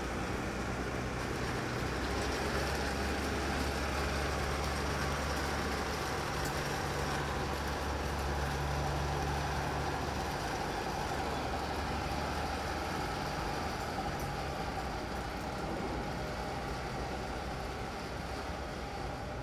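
Mercedes-Benz G 350 d's inline-six diesel engine running at low, steady revs while the SUV climbs a steep ramp under load. A steady low hum, somewhat weaker in the second half as the vehicle moves away.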